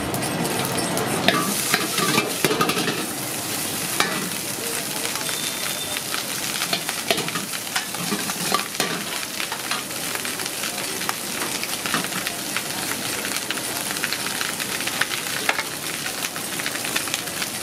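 Hot oil sizzling in a large iron kadai as cooked rice is stirred through it. A metal ladle scrapes and clicks against the pan again and again.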